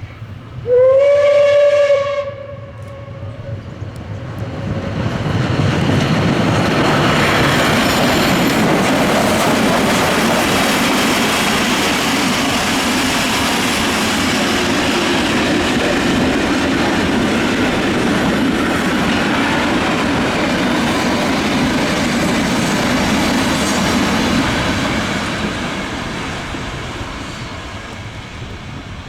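Steam locomotive 23 042 gives one short whistle blast, then the train of coaches passes close by, loud for about twenty seconds before fading away.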